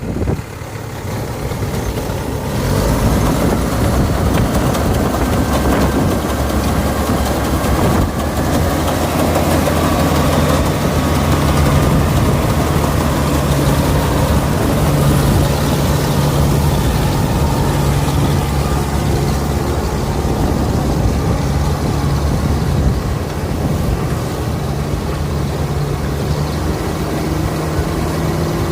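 Bimo 102 L combine harvester's engine starting up and rising over the first three seconds, then running steadily at a loud, even speed.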